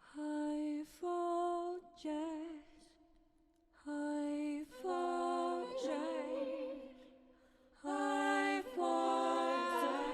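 AI-generated wordless singing: a voice holding single notes, some with a wavering vibrato, in three short phrases separated by brief pauses.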